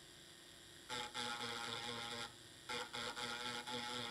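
A tool scraping solder mask off a circuit-board trace, giving a steady, even-pitched buzz in two stretches: one starting about a second in, the next near three seconds.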